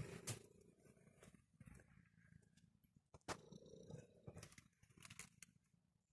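Domestic cat purring softly, with a few scattered clicks of computer keyboard keys in the background.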